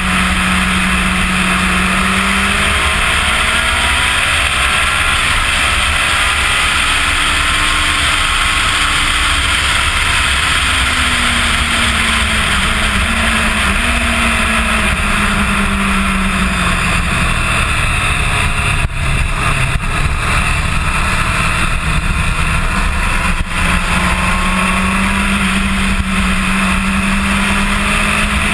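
Onboard sound of a 2005 Kawasaki ZX-10R's inline-four at speed on a race track, its pitch rising and falling as the rider works the throttle and gears, under a heavy rush of wind over the microphone.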